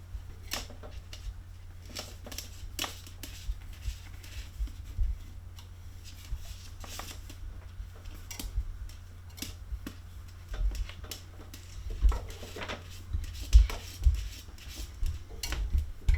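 Scattered light clicks, scratches and taps on a hard surface with soft low thumps, busier and louder in the last few seconds, from a Maine Coon kitten moving about and playing.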